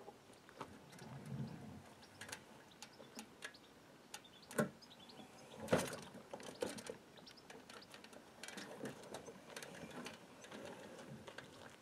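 A kayak hull knocking and scraping as it is dragged up onto an aluminium ladder, in scattered short knocks. The two loudest come about four and a half and six seconds in.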